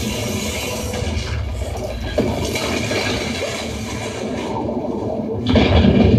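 Film soundtrack effects: a loud, steady rushing noise over a deep rumble, growing louder about five and a half seconds in.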